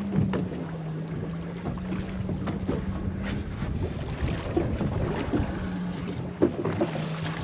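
Steady low motor hum on a fishing boat that shifts back and forth between two close pitches, with wind on the microphone and a few scattered knocks.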